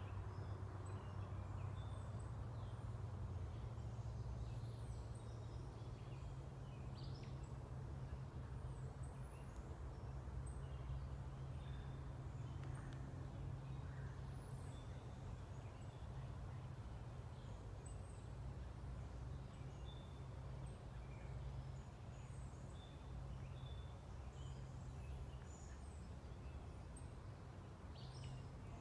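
Wild songbirds chirping in woodland, many short high calls scattered throughout, over a steady low rumble.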